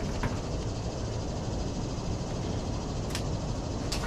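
Steady low rumble of outdoor background noise, with a few faint clicks about a quarter second in, around three seconds in and near the end.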